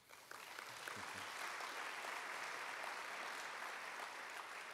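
Audience applauding, building up within the first second and then holding steady.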